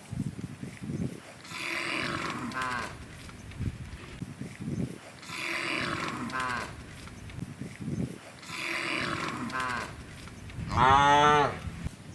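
Cows mooing: three long moos a few seconds apart, each falling in pitch at its end, then a louder moo near the end.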